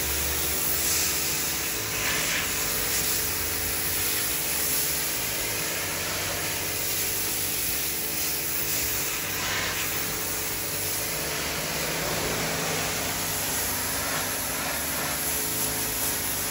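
Pressure washer spraying a steady high-pressure water jet onto a fish to strip its scales and slime: a continuous hiss of spray with a steady hum beneath.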